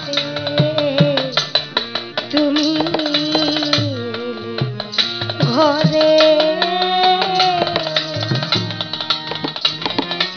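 Bengali Baul song: a woman singing a wavering melody over harmonium and a steady two-headed hand drum (dhol) beat.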